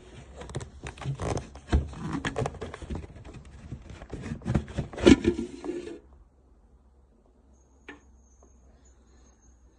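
Handling noise: rapid clicks, taps and scraping that stop about six seconds in, followed by a faint high steady tone and a single click.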